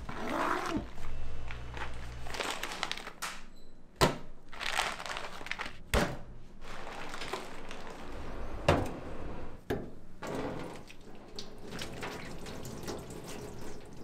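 Kitchen work sounds: three sharp knocks and clunks, about four, six and nine seconds in, among stretches of rustling and water splashing.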